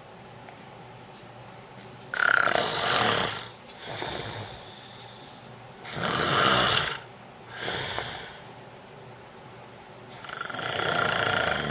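A man snoring in his sleep: loud, rasping snores about every four seconds, starting about two seconds in, the first two each followed by a shorter, quieter breath.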